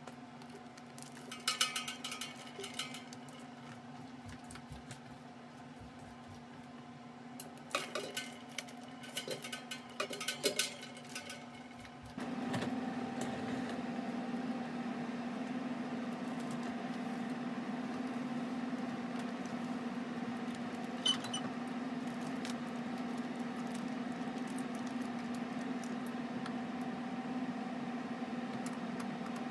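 Plastic mushroom grow bags crinkling in two bursts as they are handled, over a steady low hum. About twelve seconds in, a louder steady fan-like hum with a higher tone takes over abruptly, with a single click later.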